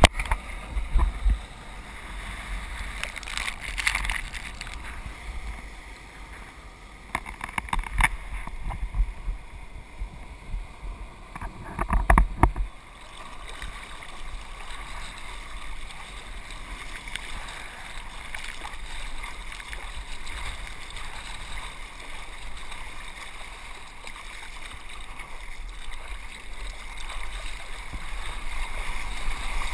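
Seawater sloshing and splashing around a surfboard as a surfer paddles with his arms, heard close up from a helmet-mounted camera. A few louder splashes stand out in the first half over steady lapping water.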